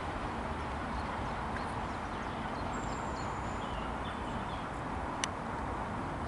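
A distant train approaching along the line, heard as a steady rumble, with one sharp click about five seconds in.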